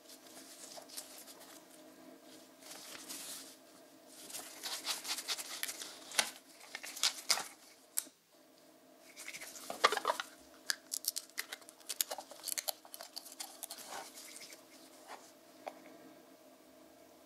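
Irregular rustling, clicking and scraping of objects being handled at close range, over a faint steady hum.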